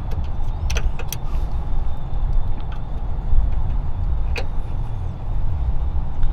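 A steady low rumble with a few sharp clicks: multimeter probes being set on the terminals of a locked-out HVAC unit during a zero-voltage check.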